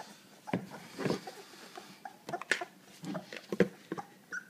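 Scattered knocks and rustles of a plastic bowl and laundry basket as a two-week-old puppy is handled and set back among its littermates, with faint puppy squeaks near the end.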